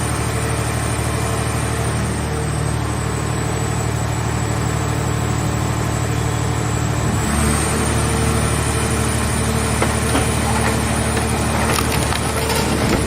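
Hydraulic scrap car-body baler running: a steady machine drone with a thin high whine, which shifts as the load changes about seven seconds in. In the last few seconds it is joined by crackling and creaking of metal being crushed.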